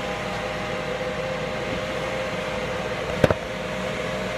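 Ninja Foodi XL Grill running its fan and heater while preheating in air-fry mode: a steady hum with a faint steady tone. A brief double knock about three seconds in.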